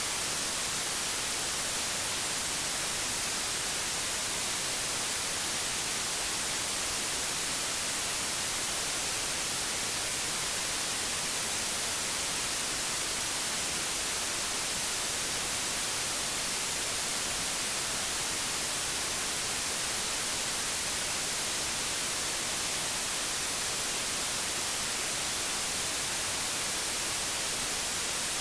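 Old television static: a steady, even hiss, brightest in the high end, that does not change.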